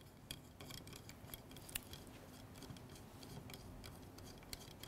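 Faint, irregular small clicks and ticks of hands handling small metal parts as an antenna is fitted to a radio transmitter.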